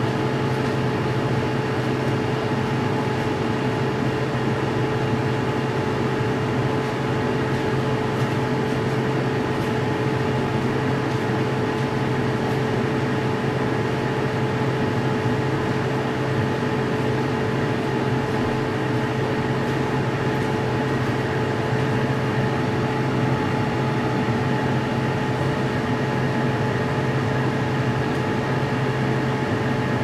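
Portable air conditioner running in cooling mode with its fan at maximum speed: a steady rush of air over a constant low hum, with a couple of steady mid-pitched tones, unchanging throughout.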